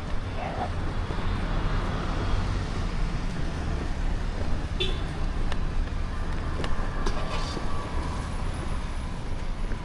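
Steady road-traffic noise: a low rumble with an even hiss over it and a few faint clicks.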